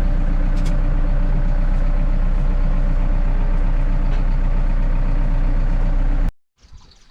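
Farm tractor engine running steadily with a low, even drone. It cuts off abruptly about six seconds in.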